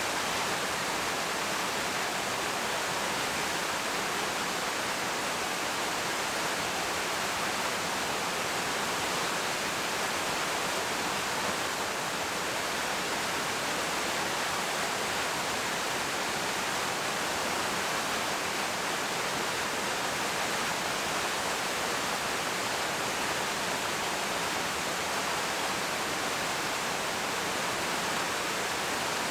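Waterfall pouring into its plunge pool, a steady, unbroken rush of falling water.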